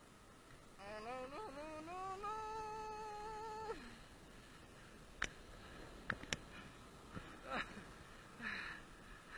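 A voice humming a single note that wavers and rises, then is held for about three seconds. A few faint clicks and short downward sounds follow.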